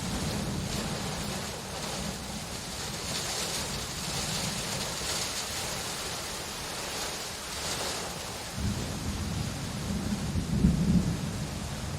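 Steady rain hissing, with a low rumble of thunder that swells in about two-thirds of the way through and is loudest near the end.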